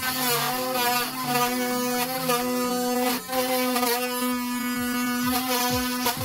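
Homemade rotary tool's high-speed 555 DC motor running steadily as its thin bit cuts a square opening in a plastic sheet. Its pitch wavers slightly as the bit bites, with a brief dip about three seconds in.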